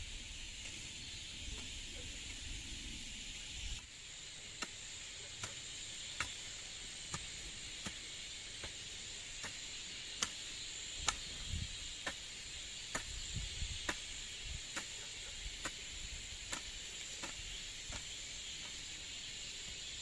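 Steady high chirring of insects, with sharp clicks at an even pace a little more than once a second.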